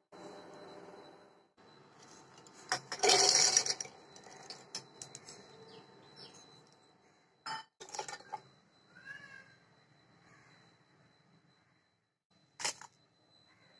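Roasted peanuts clattering as they are tipped into a steel mixer-grinder jar, a burst of many hard little impacts about three seconds in, followed by a few single knocks on the jar. A faint bird call comes in the background a little past the middle.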